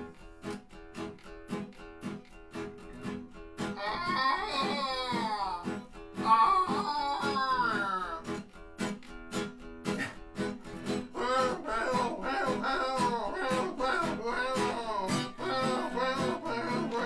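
Acoustic guitar strumming a steady rhythm while a man imitates a moose with his voice: two long, wavering calls a few seconds in, then more vocal calls over the strumming from about the middle on.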